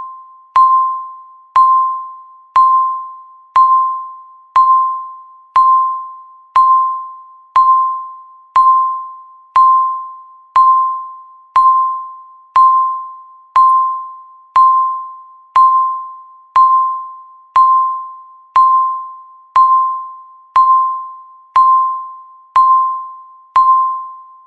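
Countdown timer beeps: one electronic chime-like tone, the same pitch every time, sounding once a second. Each beep starts sharply and fades away before the next, and each one marks another second ticking off the countdown.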